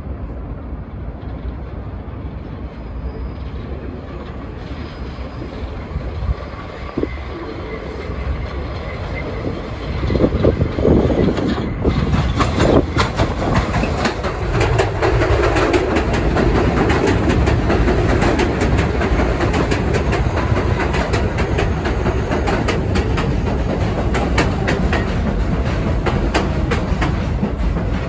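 New York City subway 6 train on an elevated steel structure, approaching and then running past close by, its wheels clacking over the rail joints. It is a distant rumble at first; from about ten seconds in it turns much louder and stays loud as the cars roll along the platform.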